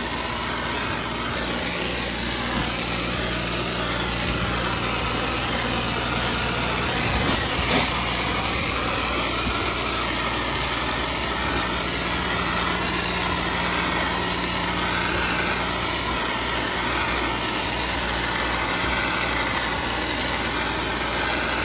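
Pressure-washing rig's engine running steadily, with a continuous hiss of water spray over it.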